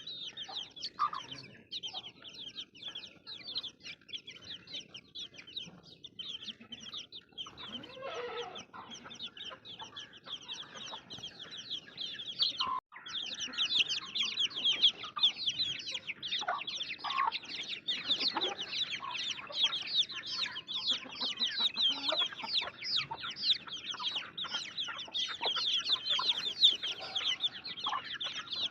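A group of baby chicks peeping: many short, high, falling chirps overlapping without pause. After a brief break about 13 seconds in, the peeping grows louder and denser.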